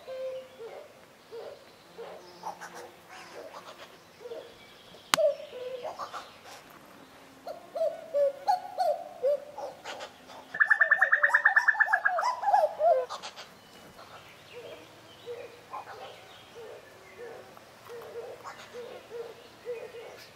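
Common cuckoos calling: males giving repeated two-note falling "cu-coo" calls, which crowd into hurried runs of notes around the middle. A loud, rapid bubbling trill, the female cuckoo's call, runs for about two and a half seconds from about ten seconds in. A single sharp click sounds about five seconds in.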